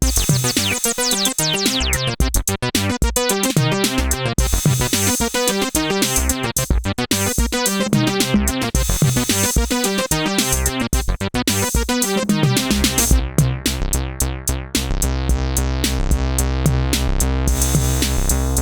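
Synthesizer bass line playing a fast sequenced pattern of short notes, their brightness sweeping, over a drum machine beat. About 13 seconds in, the pattern changes to longer, held low bass notes.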